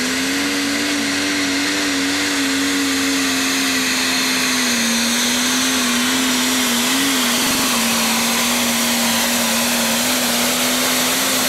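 Turbocharged diesel engine of a Case IH Magnum Pro Stock pulling tractor running at high, steady revs, its pitch dipping slightly about halfway through.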